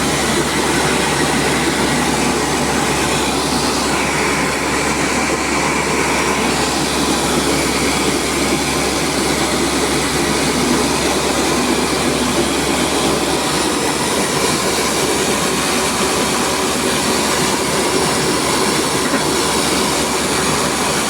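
Rice milling machine running steadily: a loud, even mechanical noise that holds without a break.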